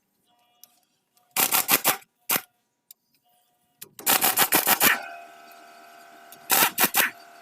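Clusters of rapid, sharp clicks and clatters in several quick bursts, with a steady hum coming in about five seconds in.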